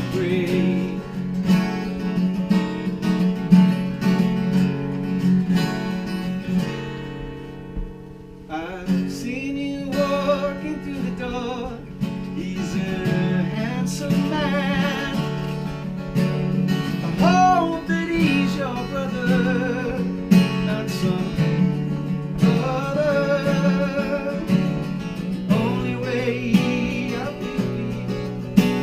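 Unplugged Americana song played live: strummed acoustic guitar with a singer. The playing thins out briefly around seven to eight seconds in, then the voice carries on over the guitar.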